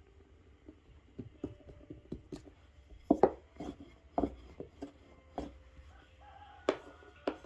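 Irregular taps and knocks on a wooden dough board as balls of dough are pressed flat by hand, the loudest a few about three seconds in and two more near the end.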